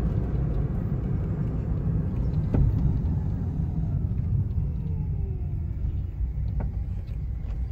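Steady road and engine rumble inside a moving car's cabin, with two faint clicks about four seconds apart.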